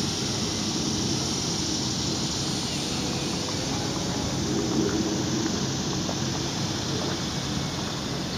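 Electric RC aerobatic airplane in flight, its brushless outrunner motor and propeller buzzing at a distance over a steady low rumble.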